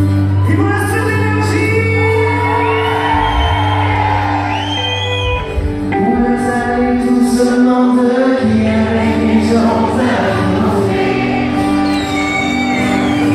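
Live band playing a song, with a male lead vocal over acoustic and electric guitars, drums and keyboard, heard in the echo of a large tent.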